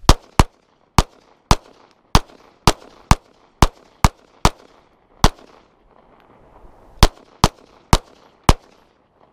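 Glock 19 9mm pistol fired fifteen times, shots about half a second apart, each with a short echo. Eleven shots come in a steady string, then after a pause of nearly two seconds four more follow.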